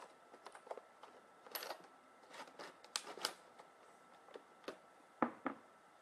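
Scattered small clicks and light rustling as hands pick up and handle small action-figure armor parts on a tabletop, with two sharper clicks a little after five seconds the loudest.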